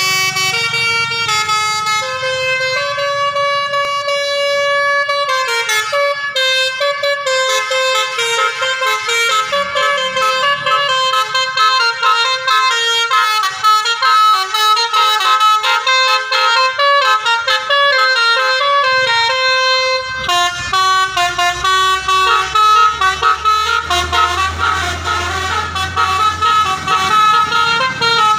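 Telolet basuri musical bus horn playing a melody, a long run of horn notes stepping from pitch to pitch. About two-thirds of the way through, a low rumble joins in underneath.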